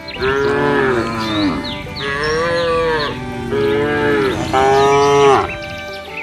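Cattle mooing: four long moos one after another, each about a second long, the pitch rising slightly and then dropping at the end.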